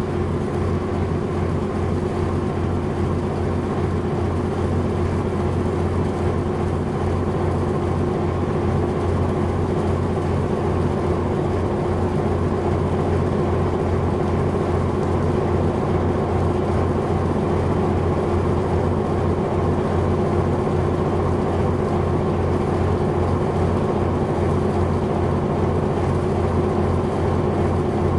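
A large engine running steadily: an unbroken low drone with a steady hum above it.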